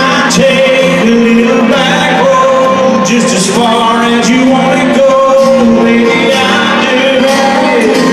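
Live country song played by a band in an arena, with a singing voice over it, heard from far back in the hall.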